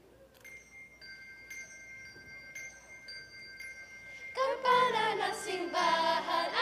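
Handbells of a few different pitches struck in turn, about two strokes a second, each tone ringing on. About four and a half seconds in, a children's choir comes in singing loudly over a low steady accompaniment.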